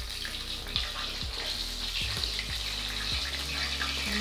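Whole floured tilapia (mojarra) sizzling steadily in hot oil, just turned onto its second side with a wooden spatula halfway through frying.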